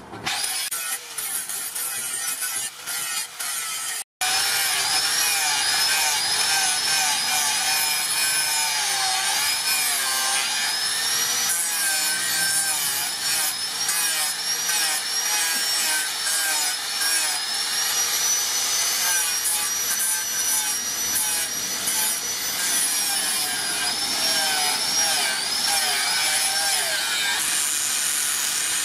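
Angle grinder with an abrasive disc grinding a steel knife blade forged from a brake disc: a continuous harsh grinding noise over the motor's high whine, which wavers up and down in pitch as the disc is pressed against the steel. It cuts out very briefly about four seconds in.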